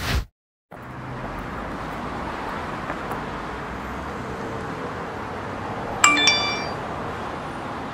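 Steady background street noise, with a short bright chime ringing briefly about six seconds in. A brief whoosh at the very start is cut off into a moment of silence.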